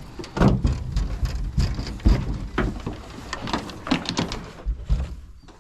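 A series of irregular knocks and clatters, about two or three a second, with scuffing between them, dying away near the end.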